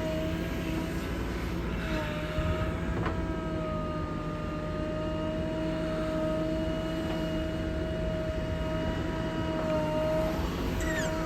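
Diesel engine of a JCB 3DX backhoe loader running steadily under a rumble, with a high steady whine whose pitch sags briefly about a second in and again near the end.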